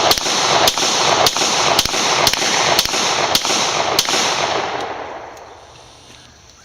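A rapid string of about ten gunshots, roughly two a second, fired at an old dishwasher; the shots stop about four seconds in and a hiss behind them fades over the next two seconds.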